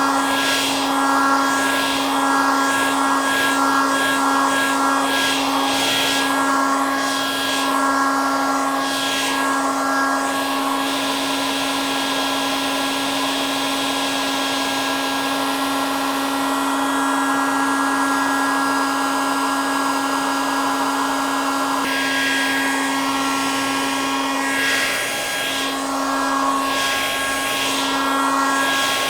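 Hair dryer running continuously: a steady motor hum under a rush of blown air. The airflow noise swells and eases unevenly through the first third and again near the end.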